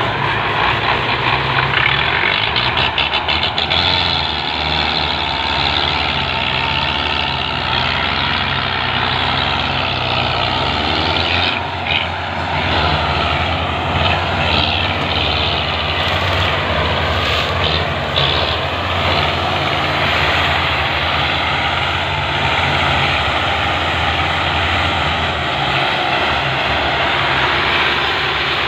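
Belarus tractor diesel engines running hard under heavy load, pulling a stuck, fully loaded sugarcane trolley. The engine noise is loud and steady, with a slight change in engine pitch about eleven seconds in.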